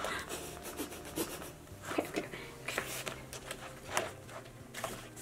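Pages of a thick photobook being turned by hand: paper rustling and flipping, with a string of short, crisp page sounds.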